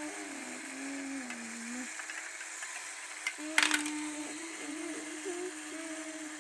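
Lego marble run's mechanism clicking and ticking as marbles travel through it, with a louder clatter of marbles a little past halfway. A person hums over it, breaking off for about two seconds in the middle.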